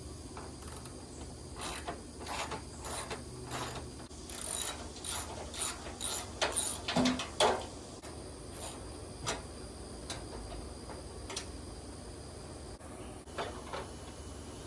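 Hand tools working on car body fasteners: a ratchet wrench clicking and metal parts rattling in irregular bursts for several seconds, then a few single clicks.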